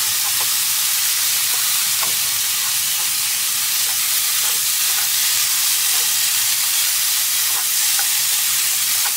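Diced chicken frying in a non-stick pan on a portable gas stove, a steady sizzle as it browns, with occasional light taps of the utensil stirring and chopping the pieces.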